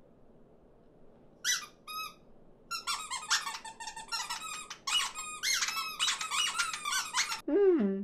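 Cartoon birds chattering in high, squeaky voices: a couple of short calls about a second and a half in, then several at once in a busy overlapping squabble. Near the end a single lower call falls in pitch.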